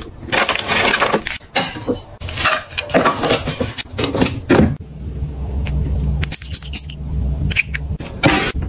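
Plastic toiletry packets, bottles and containers being handled and set into organiser bins and a cabinet: quick rustles, clicks and taps. About halfway through there is a stretch with a steady low hum and fewer taps.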